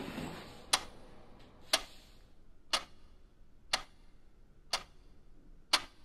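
Wall clock ticking, one sharp tick each second, six ticks in all.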